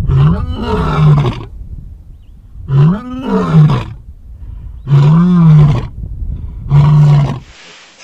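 A large animal roaring: four drawn-out calls about two seconds apart, each rising and then falling in pitch, over a low rumble. The sound cuts off abruptly shortly before the end.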